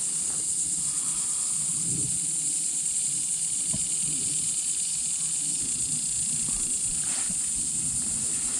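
Dense chorus of insects droning without a break, a steady high-pitched buzz.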